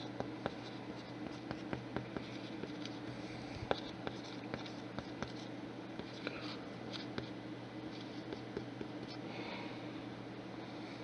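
Faint scratching and scattered light clicks, as of a pen writing on paper, over a steady low hum.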